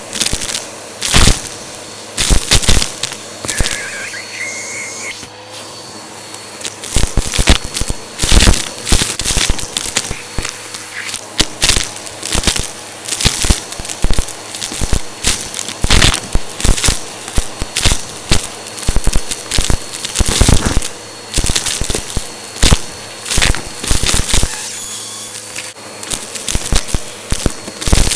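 Vacuum cleaner running over a crunchy mess, with a faint steady motor tone under many sharp cracks and crackles as the pieces are crushed and sucked up. The crunching is sparse at first and gets much denser about seven seconds in.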